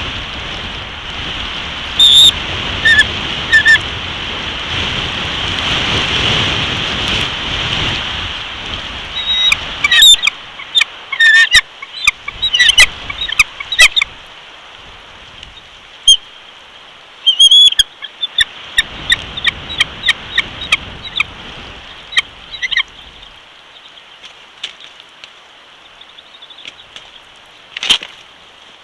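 Bald eagle giving high, sharp chittering calls in several bursts, over wind buffeting the microphone and rain, with the wind strongest in the first third.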